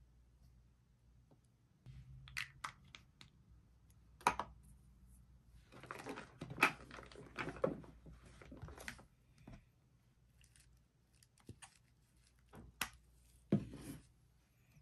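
Small cosmetic jars and bottles clicking and knocking as they are picked up and set down in a drawer. About six to nine seconds in there is a stretch of paper rustling as a sample sachet is handled.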